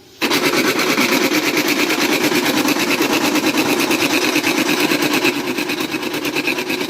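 HP 1566 laser printer running with a loud, fast, even rattling from its gear train, starting abruptly just after the opening and easing slightly about five seconds in. The noise is the sign of worn gears in its gearbox, the belt drive gear and the pressure roller gear.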